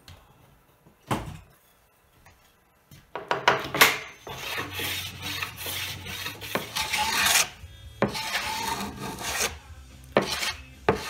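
A hand edge tool shaving glued-in mahogany slivers flush with a mahogany tabletop: repeated scraping, rasping strokes with short pauses, starting about three seconds in. A single knock sounds about a second in.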